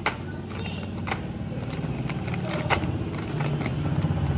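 A motor engine running steadily, growing louder toward the end, with three sharp clicks or knocks.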